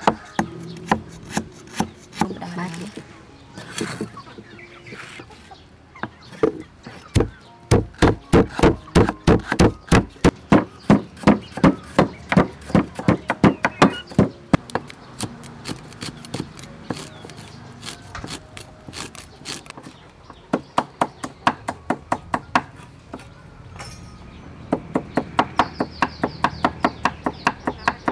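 Pestle pounding lemongrass stalks in a mortar, a long run of steady thuds about three a second. Near the end a cleaver chops herbs on a wooden cutting board in quicker, even strokes.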